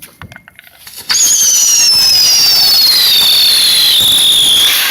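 Whistling firework going off: a few small clicks, then about a second in a sudden loud hiss with a shrill whistle that falls steadily in pitch for nearly four seconds before fading out near the end.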